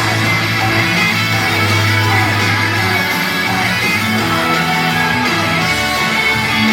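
Loud live pop-rock backing music over a PA, with electric guitar strumming and a steady bass line; little or no singing is heard.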